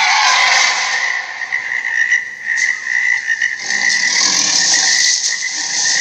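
A loud, continuous chorus of rapid pulsing calls held at one high pitch, over a dense hiss.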